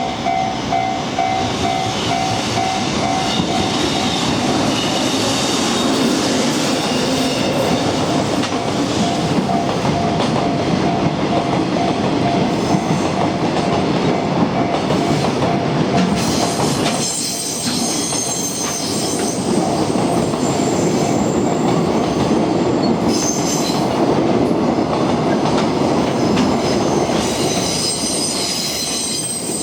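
A train rumbling and clattering over a level crossing while the crossing's electronic warning bell rings in a rapid, evenly repeating ding. The bell cuts off a little past halfway. The train keeps passing, with high-pitched wheel squeal that grows near the end.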